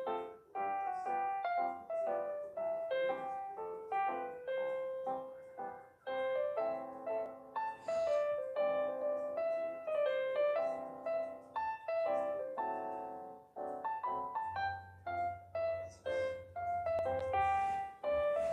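Background piano music: a melody of struck notes, each one fading, played at an even pace.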